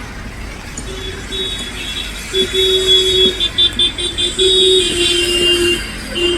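Vehicle horns honking in road traffic: long blasts and a quick run of short beeps over the steady noise of traffic.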